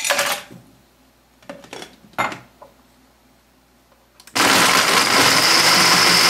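Ice tipped from a glass measuring cup knocks into a blender jar, followed by a few more knocks as the lid goes on. About four seconds in, the blender switches on and runs loud and steady, crushing the ice into the mango lassi.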